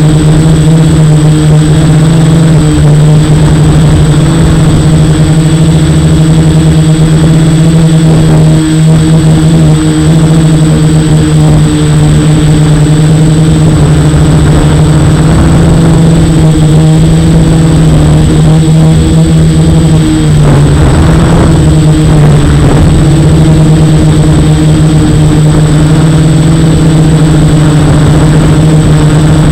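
F450 quadcopter's brushless motors and propellers running with a loud, steady whine of nearly constant pitch. The pitch wavers briefly about twenty seconds in.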